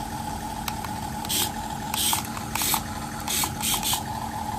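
Miniature RC Tiger tank's built-in engine sound effect humming steadily from its small speaker, broken by about six short hissy whirs from its tiny electric drive motors as the tank is driven on a tabletop.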